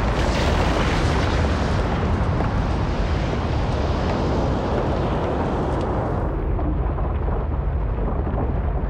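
Volcanic eruption: a sudden loud blast, then a continuous deep rumble as the ash column is thrown out. The sharper upper part of the noise falls away about six seconds in, leaving the low rumble.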